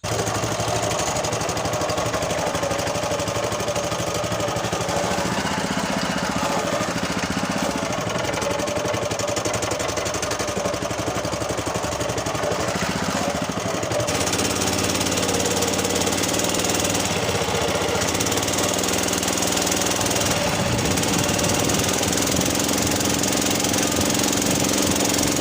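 Honda GX120 single-cylinder four-stroke engine driving a longtail boat propeller, running steadily with a fast, even chugging; the engine note changes and gets slightly louder about halfway through.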